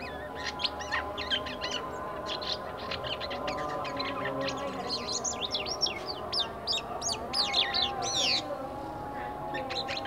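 A caged jalak kapas (white-shouldered starling) chattering in a rapid stream of short chirps and quick rising and falling whistles, busiest in the second half. It is young song still at the soft ngeriwik practice stage, varied and full though not yet mastered.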